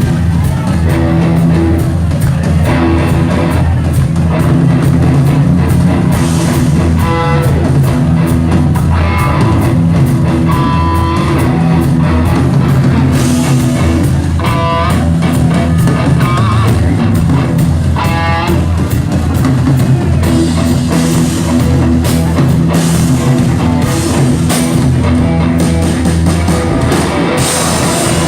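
Rock band playing live: guitars and bass over a steady drum-kit beat, with short melodic guitar lines on top.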